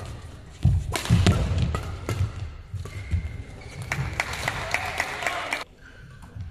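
Badminton doubles rally on an indoor court: sharp racket hits on the shuttlecock and the players' footsteps thudding on the court floor, echoing in a large hall.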